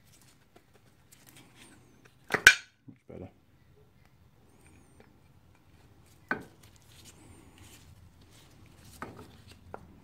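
Metal clicks and clinks of a motorcycle rear brake caliper being fitted back onto its bracket and slider pins by hand. The loudest is a sharp clack about two and a half seconds in, followed by a few lighter knocks later.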